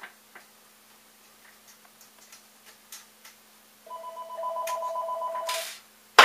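Office desk telephone ringing once with a rapidly warbling two-tone electronic trill, lasting about two seconds from about four seconds in. A single sharp, loud click follows near the end.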